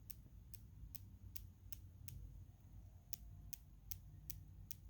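Faint, sharp clicking from the rotating bezel of a Sinn 105 St Sa UTC wristwatch as one side of it is pushed, about two or three clicks a second with a short pause in the middle. The owner takes the clicking for a quality fault in the watch.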